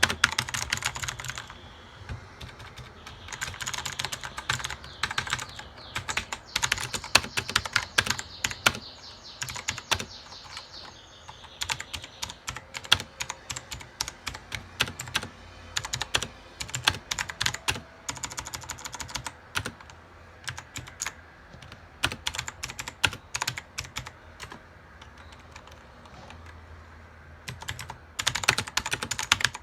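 Computer keyboard being typed on: rapid runs of key clicks, thinning to slower, scattered keystrokes at times and picking back up to a fast flurry near the end.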